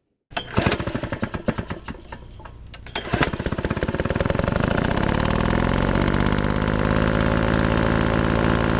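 An engine sputters with a quick, irregular run of loud pops, then catches a little after three seconds in, revs up and settles into a steady run.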